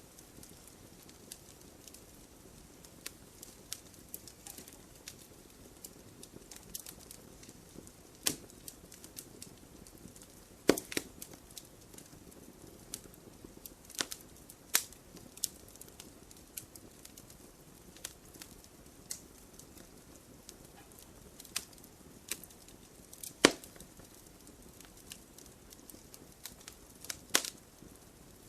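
Wood campfire crackling: sharp pops and snaps at irregular moments over a soft steady hiss, a few much louder pops standing out, about a third of the way in and twice near the end.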